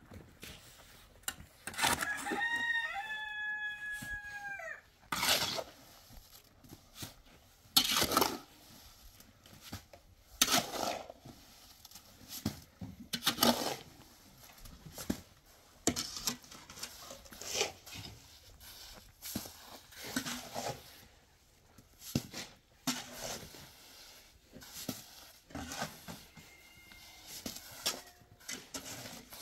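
A rooster crows once, about two seconds in: one long call that holds its pitch and drops at the end. Short, sharp sounds follow at scattered intervals through the rest.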